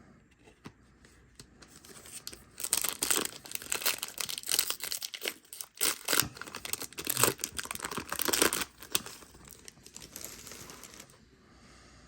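Foil Yu-Gi-Oh! booster pack wrapper being torn open and crinkled: a run of crackling rustles and tears from about two and a half seconds in until near the end.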